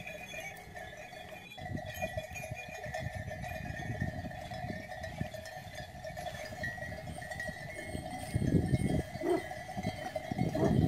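Bells of a flock ringing steadily, over a low rumbling noise that gets louder in bursts near the end.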